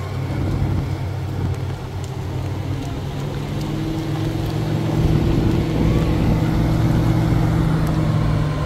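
Engine of a crane recovery truck running steadily at a constant speed, growing a little louder from about midway.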